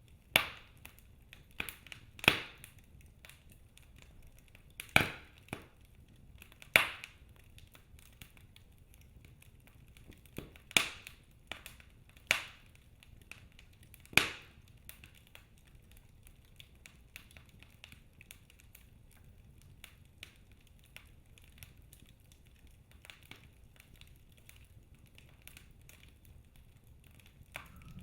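Wood fire crackling in a fireplace: sharp, irregular pops every second or two through the first half, then only faint ticks over a low steady hiss.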